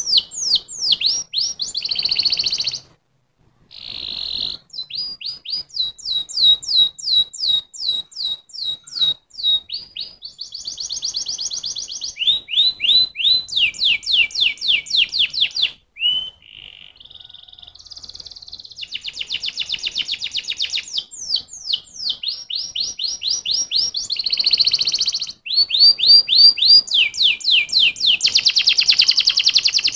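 Domestic canary singing a long song made of phrases, each a rapid run of one repeated note. Some phrases are slower chains of sweeping notes and others are fast buzzing rolls, and the song changes phrase every second or two. There are short pauses about 3 s and 16 s in.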